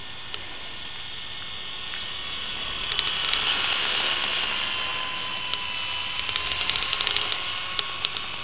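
WL Toys V912 RC helicopter flying overhead: the whine of its small electric motor and spinning rotor over a steady hiss. It grows louder about three seconds in as the helicopter comes close, and a run of small sharp ticks follows near the end.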